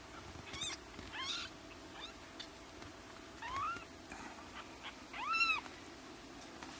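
Young kittens mewing: about five short, high-pitched mews that rise and fall in pitch, the loudest about five and a half seconds in.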